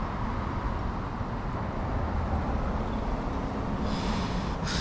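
Steady hum of road traffic, with a brief hiss near the end.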